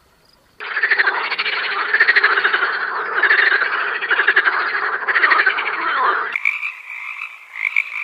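Frogs croaking in a dense, rapidly pulsing chorus that cuts off suddenly about six seconds in, where a higher, steadier pulsing frog trill takes over.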